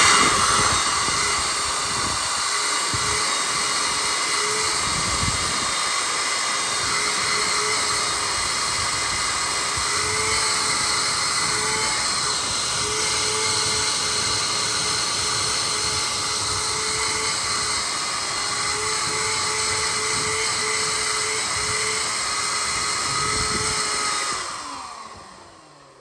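Small shop vac switched on and running steadily, a motor whine over loud suction hiss, its pitch wavering slightly as the nozzle works over the cargo-area mat. It is switched off near the end and winds down.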